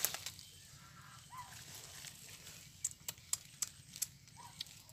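Scattered sharp clicks and taps, at a low level: one at the start and a cluster of about six in the second half, with a couple of faint short sounds in between.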